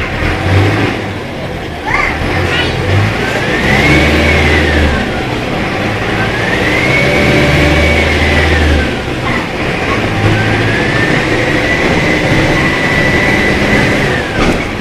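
Mercedes-Benz OF-1417 bus's OM-904LA turbodiesel four-cylinder engine pulling under load through the gears of its six-speed manual gearbox. A high whine rises and falls three times, each time held a little longer, with the engine speed in each gear.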